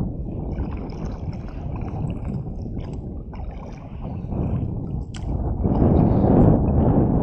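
Wind buffeting the microphone with water sloshing against the canoe hull, swelling louder near the end. A single sharp click sounds a little after five seconds in.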